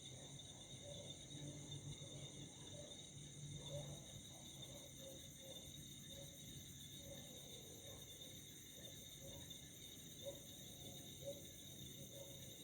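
A faint, steady chorus of crickets trilling at night, with several high pitches held unbroken. Short soft low notes come and go irregularly underneath.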